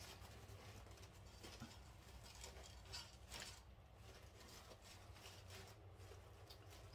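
Near silence with faint rustling and light clicks from the ribbon wreath and its bow being handled, over a low steady hum.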